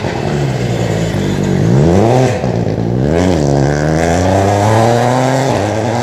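Rally car engine revving hard under acceleration as the car approaches and passes, the pitch climbing and then dropping sharply at two gear changes about two and three seconds in, then pulling steadily again.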